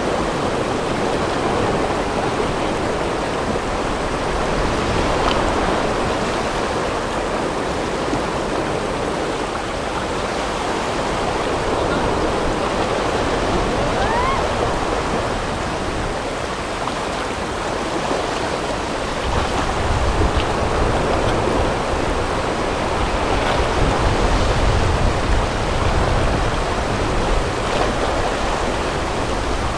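River whitewater rapids rushing steadily around an inflatable raft, with a stronger low rumble for several seconds in the second half.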